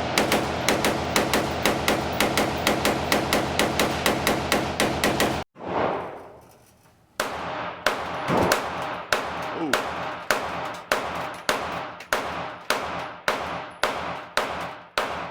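Rapid gunfire at a shooting range: a fast, even string of shots, about four a second, that cuts off abruptly about five seconds in, then after a short gap a slower run of shots, about two a second.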